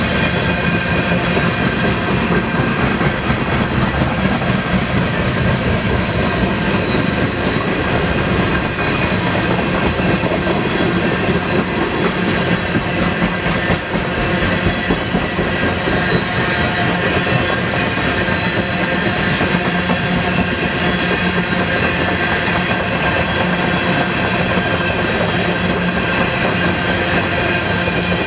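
Freight train passing close by: railcar wheels rolling and clattering over the rails, loud and steady, with a thin steady ringing tone on top.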